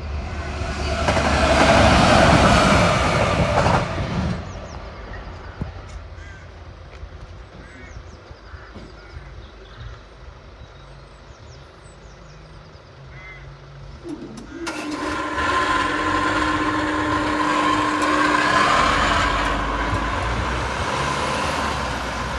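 A Class 66 diesel freight locomotive, with its two-stroke V12 engine, runs past light engine. It is loud for about four seconds, then drops away quickly to a low rumble. About fifteen seconds in, a second steady engine-like sound with a held hum starts suddenly and carries on.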